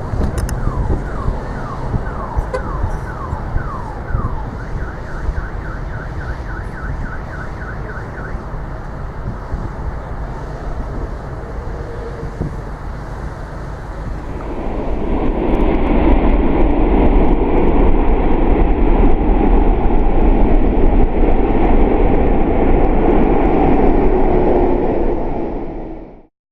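Car alarms set off by a Boeing 777-300ER's GE90 engines during a hard rejected takeoff, wailing with sweeping and then rapidly repeating siren tones over a steady low rumble. About fourteen seconds in, a louder steady roar builds over them and cuts off abruptly near the end.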